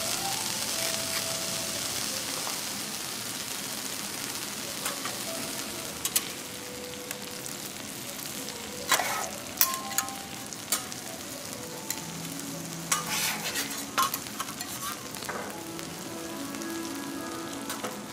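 Food sizzling on a teppanyaki steel griddle. The hiss slowly dies down, and around the middle there is a run of sharp metallic clicks and taps from spatulas on the plate.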